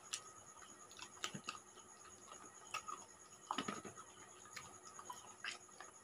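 Faint eating sounds from people eating rice and curry by hand: scattered soft clicks and smacks of chewing and fingers working food on plates, with a short cluster of them a little past halfway.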